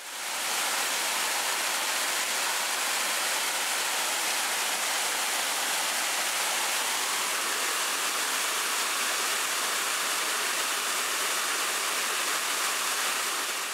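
Small waterfall splashing over a layered rock ledge into a shallow pool, an even, steady rush of falling water.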